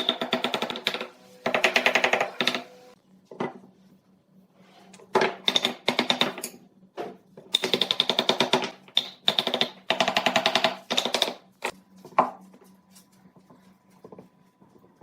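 A power tool rattling in short bursts of about a second each, roughly seven times, with brief pauses between runs.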